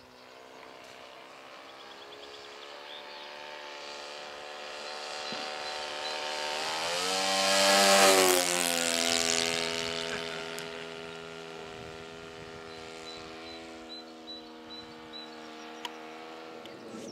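O.S. FS-40 Surpass four-stroke glow engine on a model motor glider running steadily in flight. It grows louder to a peak about eight seconds in as the plane passes close overhead, drops in pitch as it goes away, then fades.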